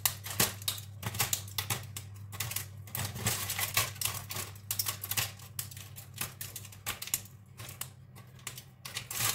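Set caramelized sugar being snapped and broken into small pieces: a rapid, irregular run of crisp cracks and clicks.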